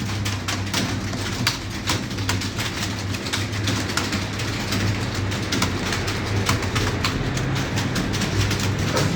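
Computer keyboard typing: a fast, irregular run of key clicks over a steady low hum.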